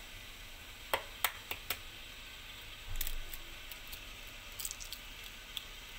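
Quail eggshells cracked by hand over an aluminium idli plate: a few small, sharp cracks and clicks, one cluster about a second in and another near the end.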